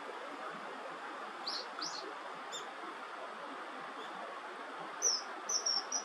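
A common kingfisher's high, shrill calls: two short chirps about a second and a half in, then a run of sharp, flat, piercing whistles in the last second, the loudest sounds, over a steady background hiss.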